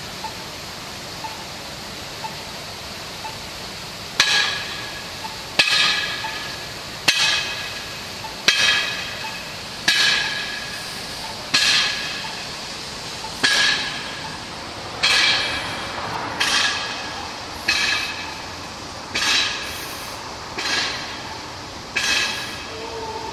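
A parking meter being beaten with a steady series of ringing metal clangs, about one every second and a half, each dying away before the next. A few faint ticks come first, and the regular strikes begin about four seconds in.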